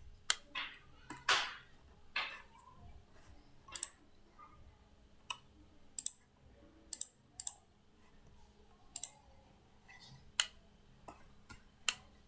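Computer mouse clicks, a dozen or so sharp single clicks at irregular intervals over a faint room hiss, with a few brief soft rushes of noise in the first couple of seconds.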